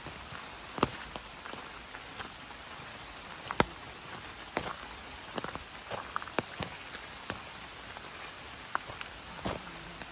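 Light rain: a steady hiss, with scattered drops ticking close by at irregular intervals, a few of them loud.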